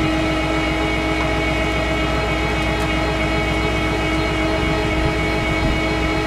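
Rollback tow truck running its winch to pull a car up toward the bed. A steady mechanical drone with a constant whine holds level throughout.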